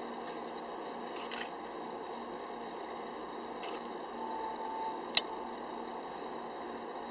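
A binturong chewing a banana: faint, wet smacking clicks scattered over a steady background noise, with one sharp click about five seconds in.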